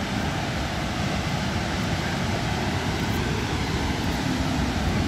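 Steady rushing of Cameron Falls, a large waterfall pouring down a rock cliff, an even roar of water with no breaks.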